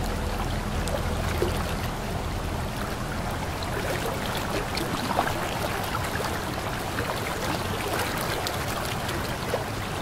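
Waterfall: an even, steady rush of falling water, with many small splashes heard through it.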